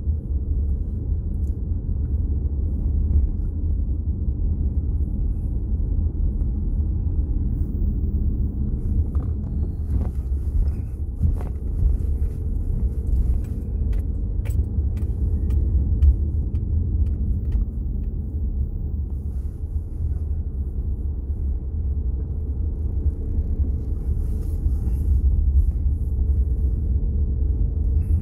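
Steady low rumble of a moving car's engine and tyres on the road, heard inside the car, with a few faint clicks now and then.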